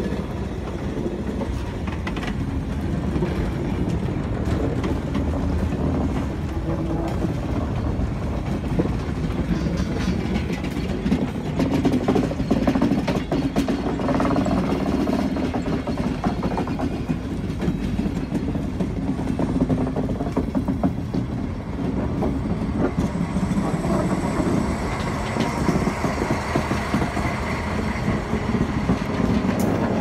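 Railway coaches and wagons rolling past close by: a steady rumble of steel wheels on the rails with clickety-clack. The sound grows brighter near the end as the diesel locomotive comes alongside.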